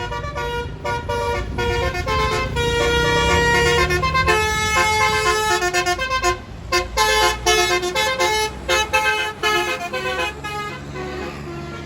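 Bus 'telolet' multi-tone horn playing a melody of quick, stepped notes over the low rumble of the bus engine. The notes turn fast and choppy about two-thirds of the way in, then fade near the end.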